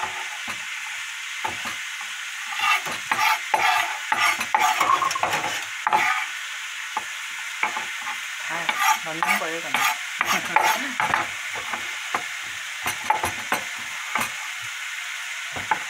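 Boiled pork skin and vegetables sizzling in a frying pan on the stove, a steady hiss with irregular knocks and clatter of handling over it.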